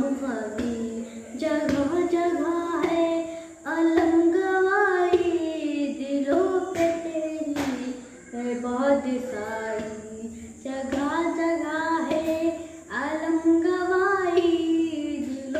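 A boy singing a noha, a Shia devotional lament, unaccompanied, in long drawn-out phrases with short pauses for breath.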